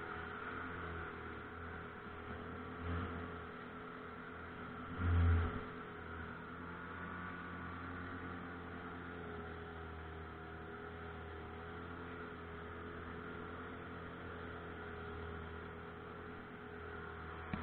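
Pontoon boat's outboard motor running at a steady speed, a constant hum, with a short low thump about five seconds in.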